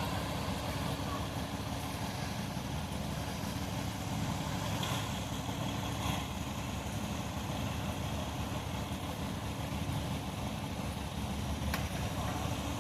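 Concrete mixer truck's diesel engine idling steadily, with a low rumble and a few faint clicks.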